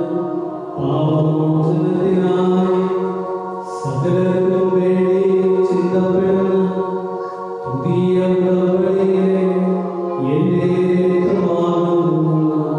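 Slow liturgical chant sung in long held notes, phrase after phrase, with short breaks between phrases.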